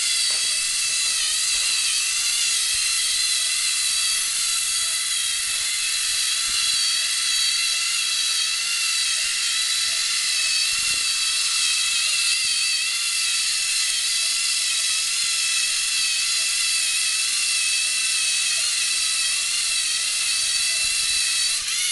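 LEGO Mindstorms NXT robot's electric drive motors whining steadily as it drives along on its tracks. The high whine wavers a little in pitch as the robot steers and turns.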